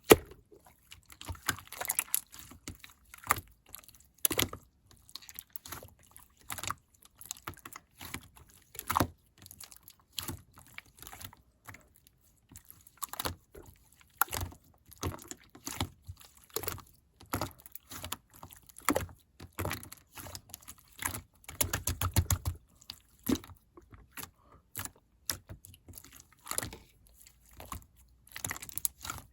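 Hand-played slime being pressed, stretched and folded, making irregular sticky clicks and crackling pops, some in quick clusters.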